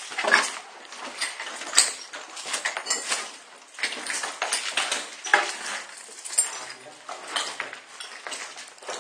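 Footsteps crunching over a debris-strewn floor, with irregular sharp clinks and scrapes a few times a second.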